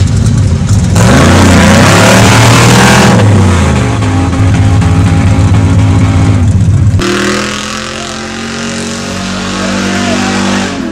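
Off-road competition truck engines revving hard under load, the pitch rising and falling, with a loud rushing noise over them for a couple of seconds about a second in. About seven seconds in the sound cuts to a steadier, somewhat quieter engine note.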